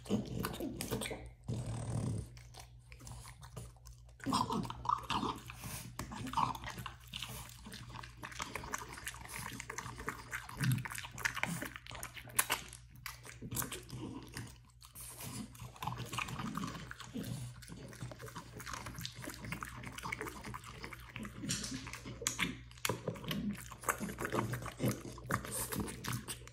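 A French bulldog chewing and crunching treats: irregular bouts of short crunches and jaw clicks.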